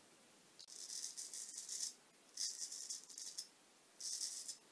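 Straight razor shaving lathered stubble on the cheek: three quiet scraping strokes, the first two about a second long and the third shorter.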